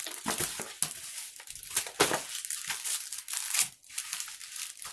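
Plastic packaging of a diamond painting kit crinkling and rustling in irregular bursts as it is handled and turned over.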